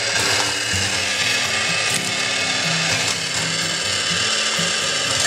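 Plastic toy parking garage's rotating car elevator being turned, its plastic gears and ratchet clicking and whirring as the cradles go round.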